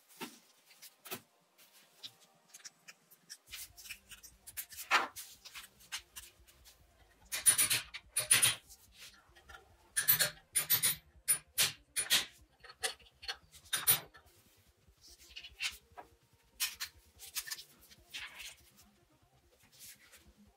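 Hands working on a small brushed electric motor: irregular clicks, taps and scrapes of small metal parts and a tool, with a few sharp metallic clinks around the middle.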